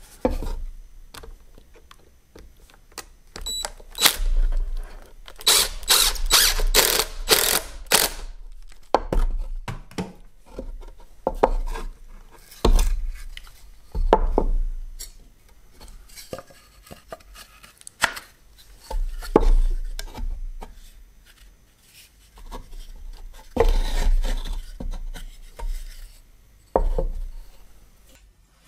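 Plywood parts handled and test-fitted together on a wooden workbench: irregular wooden knocks and clunks with rubbing, including a quick run of about six scraping strokes some five to eight seconds in.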